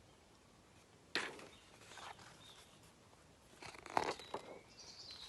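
Faint handling noises from a picture book: a sharp knock about a second in and a cluster of rustles and clicks around four seconds in, as from pages being turned. Faint high bird chirps come in near the end.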